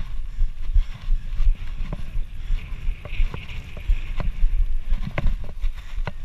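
Fat bike rolling over soft sand, heard through a handlebar-mounted camera: a heavy rumble of wind buffeting and frame vibration, with frequent knocks and rattles from the bike over bumps, and a rushing hiss around the middle.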